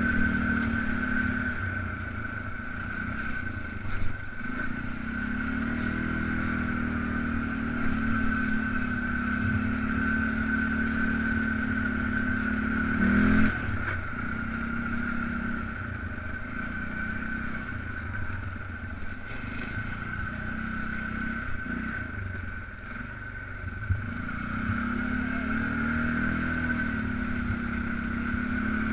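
Polaris Sportsman 500 ATV's single-cylinder four-stroke engine running under way on a trail, its pitch rising and falling with the throttle over a steady high whine. Two sharp knocks, about four seconds in and again near the middle.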